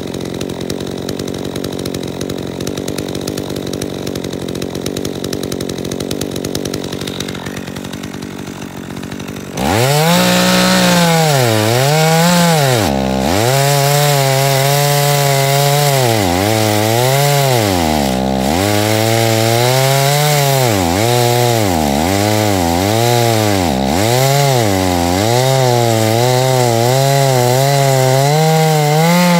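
Chainsaw engine idling, then opening up to full throttle about ten seconds in and cutting through a log. Its pitch sags and recovers again and again as the chain bites into the wood, with a few short drops where the throttle is eased.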